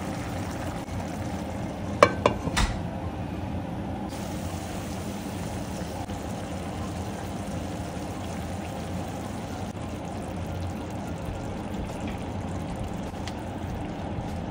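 Broth pouring from a plastic measuring jug into a pan of vegetables and turkey neck, a steady splashing pour. A few sharp clinks about two seconds in.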